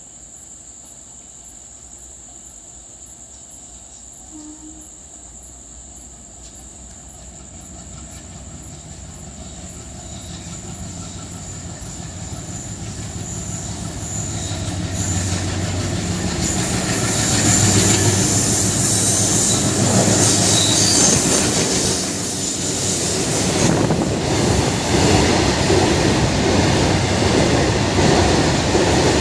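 Twin WDM3A diesel locomotives with a freight train approaching, growing steadily louder with a low engine hum until they pass about 17 seconds in. The wagons' wheels then rumble and clatter past on the rails.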